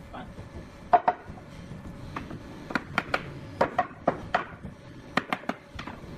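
Hand-tool strikes on wood: about a dozen sharp knocks and taps at uneven intervals, some in quick pairs or clusters, a few with a brief ring.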